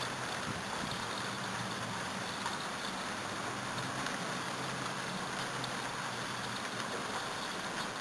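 Steady rain shower falling, an even hiss of drops with no breaks, with a faint low hum beneath it.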